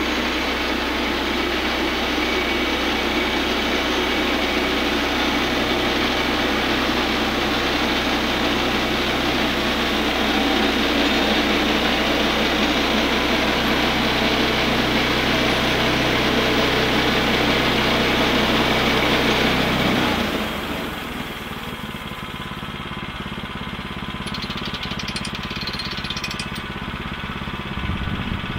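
Woodland Mills HM122 bandsaw mill sawing through a jack pine log: its gasoline engine and blade running under load, loud and steady. About twenty seconds in, the blade clears the cut and the sound drops to the quieter, steady hum of the engine still running.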